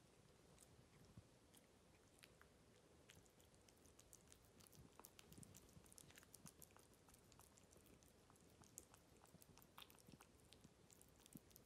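Ragdoll kitten eating very soft mousse-pâté wet cat food from a bowl: faint, irregular little smacking and licking clicks.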